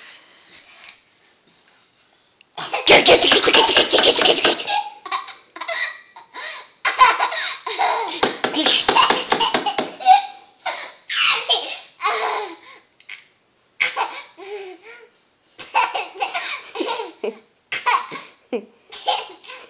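A toddler laughing hard in repeated fits. A long loud burst starts about three seconds in, followed by many shorter bursts of giggles and belly laughs.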